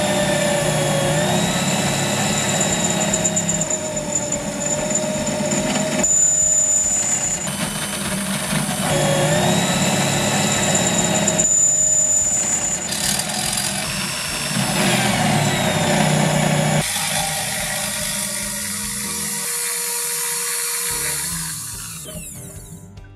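Cordless drill in a drill-press stand boring through thin steel square tubing, its motor whining up to speed at each start and running under load in several stretches with short breaks between holes, then fading out near the end.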